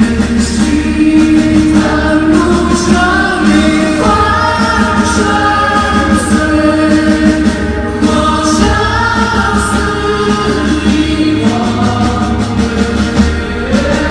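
Live band music with long held, wordless singing that slides between notes, choir-like, over a steady pulsing bass.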